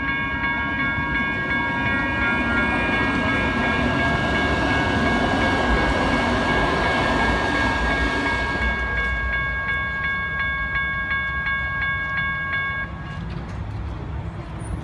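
Electronic railroad crossing bells ringing steadily while a light rail train rumbles through the crossing, loudest in the middle. The bells cut off about three-quarters of the way in as the gates begin to rise.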